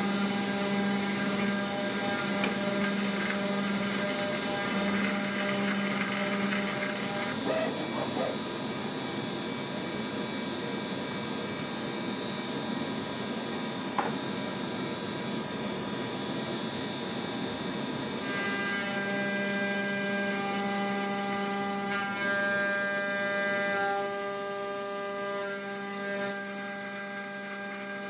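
DIY CNC milling machine's spindle and end mill cutting aluminium, a steady machining whine of several held tones whose pitch pattern shifts about a quarter of the way in and again past halfway. A single short tick sounds about halfway.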